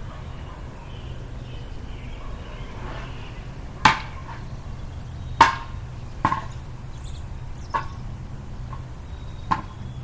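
A series of sharp knocks, about six at uneven intervals through the second half, over a steady low rumble.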